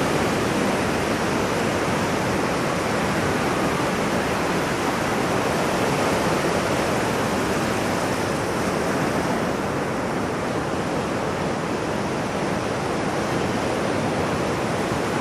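Ocean surf washing in a steady, continuous rush, with no single wave standing out.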